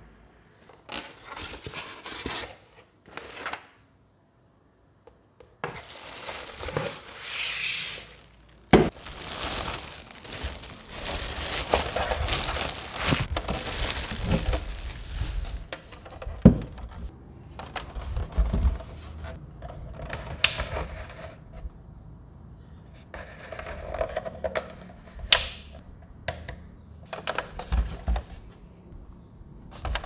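Unboxing handling noise: cardboard box flaps and packing moved about and a plastic desktop air cooler lifted out and turned over in the hands, with irregular rustling and scraping and a few sharp knocks.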